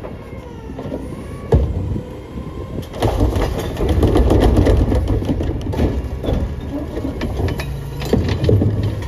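A sharp metallic thump about a second and a half in, then the McNeilus rear-loader's packer cycles from about three seconds: the truck's hydraulics run under load while recyclables clatter and crunch as they are compacted in the hopper.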